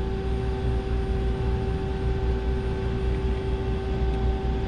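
Steady hum of running shop machinery: a constant motor or fan tone over a low rumble.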